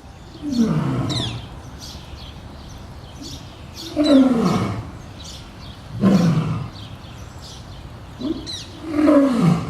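Male lion roaring: four long roars a few seconds apart, each sliding down in pitch.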